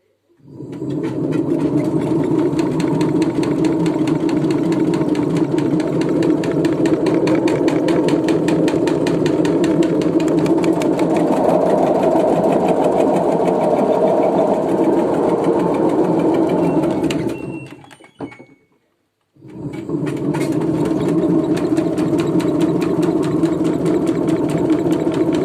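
LG washing machine running hard with a fast, steady rattle as it shakes and jumps, the condition the owner calls suds lock. It stops about 17 seconds in, a short click follows, and it starts up again about two seconds later.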